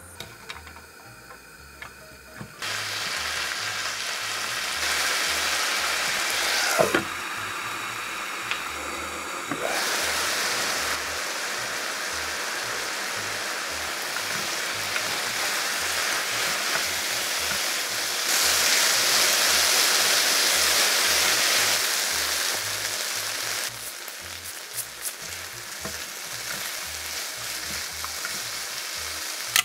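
Food sizzling in a frying pan. The sizzle starts about three seconds in, grows louder partway through and eases off near the end, with a few knocks and scrapes of stirring.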